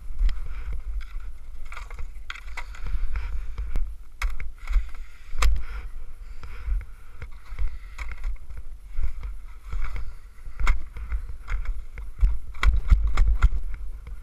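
Wind buffeting a head-mounted camera's microphone in a low, uneven rumble, with scattered clicks and knocks from the skier's skis, poles and clothing as he shifts his footing on snow.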